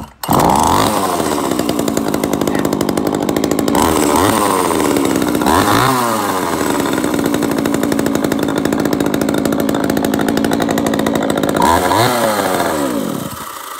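A G320 two-stroke chainsaw catches right at the start and runs at idle. It is revved up and back down three times, once briefly, then near the middle and near the end, before it cuts out.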